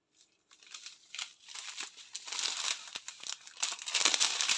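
Crinkly plastic: strips of small plastic bags of diamond painting drills being handled and shifted over cellophane wrapping. It starts about half a second in, crackling lightly, and gets louder in the second half.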